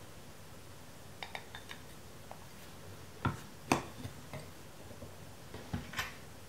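Light clicks and knocks as a 90 mm Fujinon large-format lens and its lens board are handled and fitted together: a few faint ticks about a second in, two sharper knocks a little after three seconds, and two more near the end.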